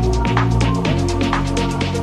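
Electronic background music with a steady beat, about two beats a second, under held and gliding synth notes.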